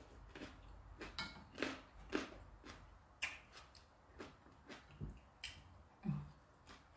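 A person eating close to the microphone: chewing and lip-smacking, an irregular run of short wet clicks, a few each second.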